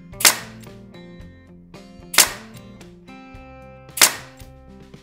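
Pneumatic nail gun firing three times, about two seconds apart, driving nails into MDF panels; each shot is a sharp crack. Background music plays underneath.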